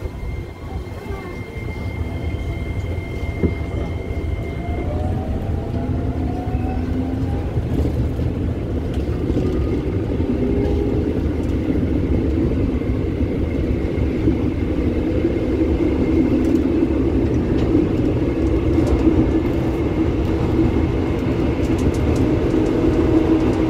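IGBT-VVVF inverter and traction motors of a KRL Commuterline electric train pulling away from a station, heard from inside the car. A steady high tone sounds for the first few seconds, then whining tones rise in pitch as the train picks up speed, over a steady low rumble, and the sound grows louder.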